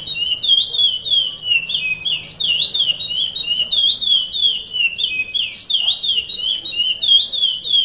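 Male curió (chestnut-bellied seed finch) singing the Paracambi 'rompe nuvem' song type: a continuous stream of quick, high whistled notes sweeping up and down.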